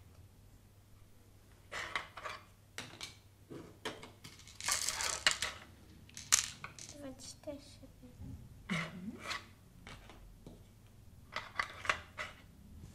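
Montessori golden bead bars and wooden number tiles handled on a table: scattered clicks and knocks as tiles are slid into the wooden Seguin board and bead bars are laid down, with a denser clinking rattle about five seconds in as beads are taken from their wooden box.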